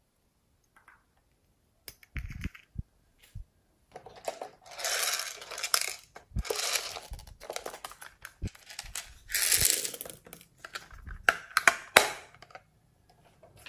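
Hands handling small plastic slime containers: scattered plastic clicks and knocks, three stretches of rustling, scraping noise as the container is turned and rubbed, and a few sharp clicks near the end.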